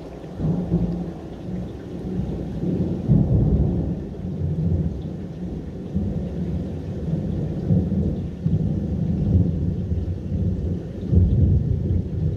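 Rolling thunder from a close lightning strike: a deep rumble that builds about half a second in and swells again and again in waves for several seconds. Rain falls underneath.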